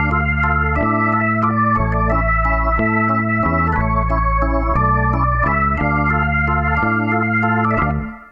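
Background music of held organ-like keyboard chords, the chord and bass note changing about once a second. The music drops away just before the end.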